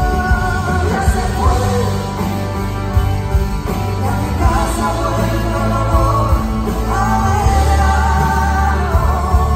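Live performance of a Spanish pop ballad: a woman singing over piano, with bass and drums underneath.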